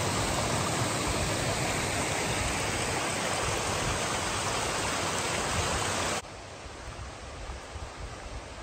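A small rocky woodland stream rushing and splashing over boulders in a steady rush. About six seconds in it cuts off abruptly to a much quieter forest background with faint rustling footsteps on a dirt trail.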